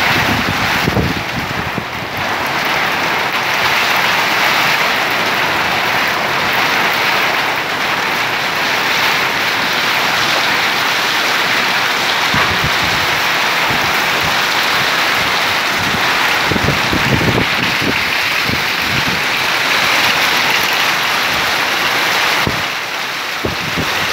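Heavy rain pouring down in a loud, steady hiss, with low gusty rumbles coming through now and then.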